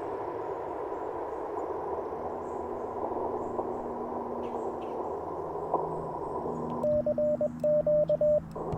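Icom IC-705 transceiver's receiver hiss through a narrow CW filter, with no station coming through. Nearly seven seconds in, Morse code starts: rapid beeps of one steady mid-pitched tone, the radio's sidetone as the operator sends with a paddle, with the hiss dropping out while he keys.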